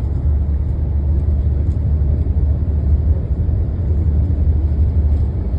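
Steady low rumble of a moving road vehicle driving along.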